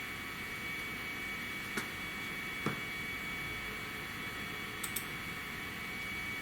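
Computer mouse clicks: a single click about two seconds in, another about a second later, and a quick double click near the end, over a steady electrical hum and hiss.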